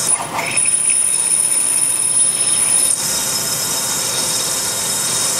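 CNC lathe drilling a rifle barrel's chamber in a deep-hole cycle with retraction: the spindle and drill run with a steady machine noise and a thin, high whine.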